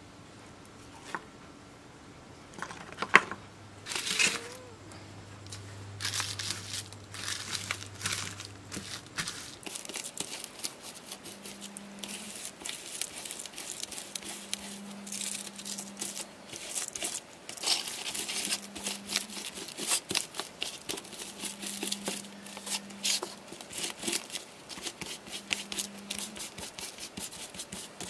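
Foil-wrapped lithium polymer pouch cells crinkling and crackling as they are handled and rubbed with a cloth, a dense run of small crackles from about six seconds in. A single sharp click about three seconds in is the loudest sound.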